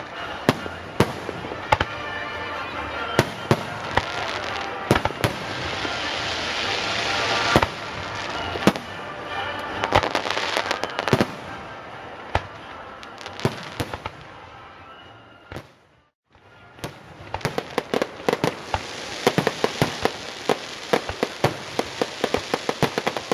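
Fireworks display: a continuing series of sharp bangs and booms over crackling. The sound cuts out for about a second two-thirds of the way through, then returns with a dense, rapid run of pops.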